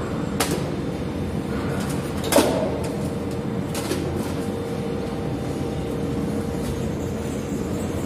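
A steady hum and hiss, broken by a few sharp clicks; the loudest click comes about two and a half seconds in.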